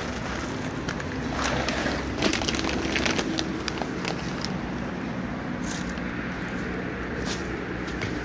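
Dry cat food poured from a plastic bag onto paving tiles, with the kibble rattling and the bag rustling in the first couple of seconds, over a steady hum of distant traffic. A few brief rustles follow later.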